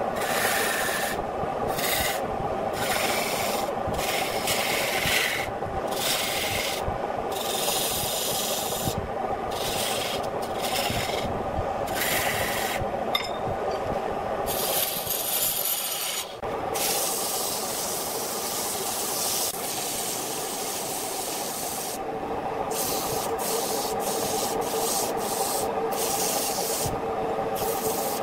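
Wood lathe running with a steady hum while a hand-held tool and abrasive scrape against the spinning wooden vase. The hissing rasp comes and goes in short strokes as the tool is pressed on and lifted off, running unbroken for a few seconds past the middle.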